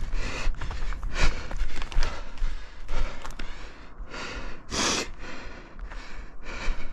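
Heavy breathing of a runner at race effort, a hard breathy exhalation about every second, the loudest about five seconds in, with footsteps beneath.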